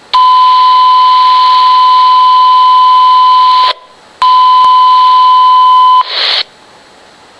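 A steady high alert tone over radio hiss, heard through a police scanner's speaker. It sounds for about three and a half seconds, breaks off briefly, then sounds again for about two seconds, ending in a short burst of static. This is the fire dispatch alert tone that comes before a fire call goes out.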